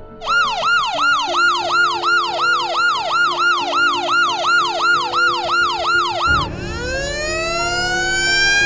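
Police-style siren yelping fast, about three quick rises and falls a second. About six seconds in it switches to a slow, rising wail.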